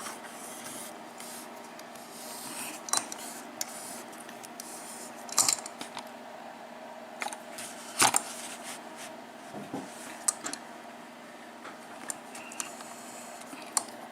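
A lock cylinder being set and clamped in a bench vise: scattered sharp metallic clicks and knocks with some scraping and handling, the loudest knocks about five and eight seconds in.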